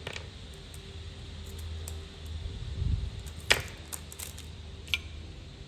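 A Zippo lighter being handled: a few sharp metallic clicks, the loudest about three and a half seconds in, over a low steady hum.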